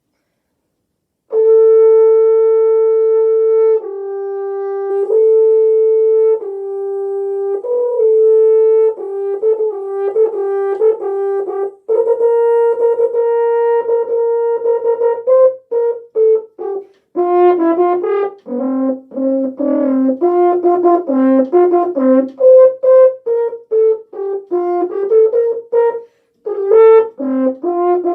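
Solo French horn playing an orchestral excerpt. It opens with long held notes, then moves into quicker, shorter notes in the second half, with a brief break for breath near the end.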